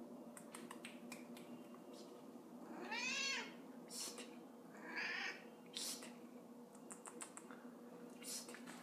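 Black domestic cat meowing: one clear meow about three seconds in that rises and falls in pitch, then a shorter, higher call about two seconds later. A few short clicks are scattered around the calls.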